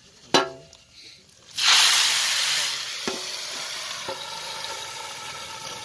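A sharp metal clang, then a sudden loud sizzle in a large pot of prawn dalma, as hot oil tempering hits the dal. The sizzle slowly fades, with a couple of light metal clinks as the lid goes on.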